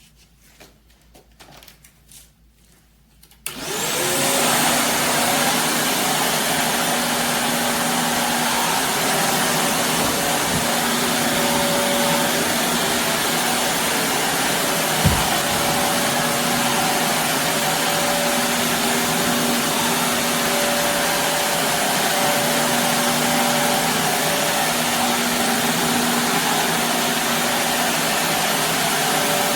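Shark Navigator Lift-Away upright vacuum switched on about three seconds in, its motor spinning up with a rising whine, then running steadily. One short thump about halfway through.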